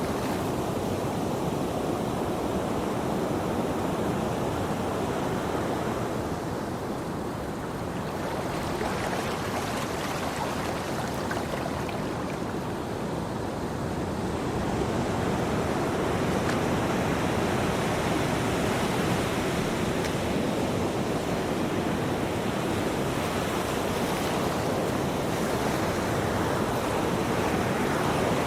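Ocean surf: waves washing in as a continuous rushing noise that slowly swells and eases over several seconds.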